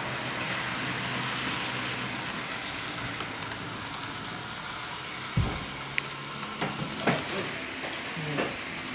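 HO scale model trains running on the layout: a steady hiss with a low hum, and several sharp clicks and knocks in the second half.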